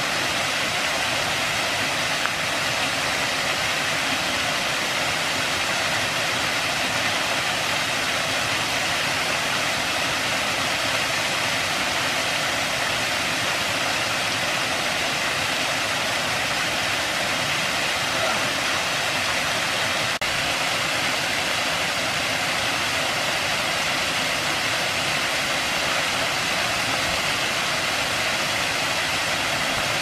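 Waterfall pouring over a rock ledge and splashing into a pool: a steady, even rush of falling water.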